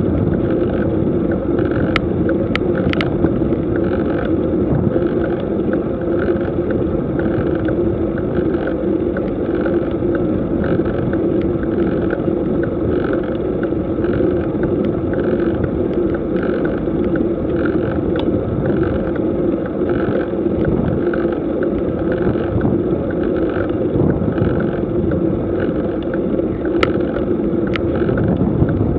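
Steady rushing wind and road noise on a bicycle-mounted camera's microphone during a slow road climb. A few sharp clicks come about two to three seconds in and again near the end.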